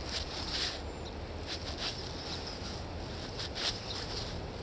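Steady low rush of the river, with a few faint scattered clicks and rustles.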